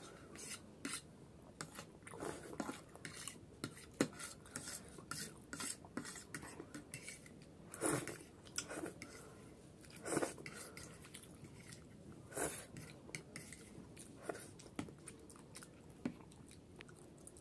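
Close-up eating sounds: a metal fork clicking and scraping against a plate again and again, with Maggi masala noodles being slurped and chewed. There are a few longer, louder slurps around the middle.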